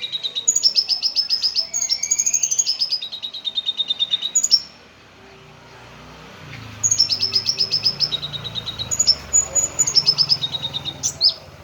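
Lovebird singing fast runs of high, repeated chirping notes, about ten a second, changing pitch from phrase to phrase; it sings for about four and a half seconds, pauses, then sings again for about four seconds.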